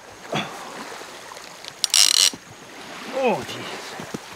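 Heavy conventional fishing reel letting out line against its drag in a short loud high-pitched ratcheting burst about two seconds in, the sign of a hooked shark pulling line off on its first run.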